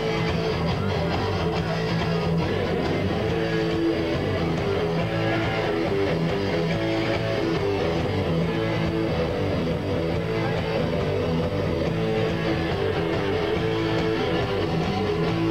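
A rock band playing live, with guitar to the fore.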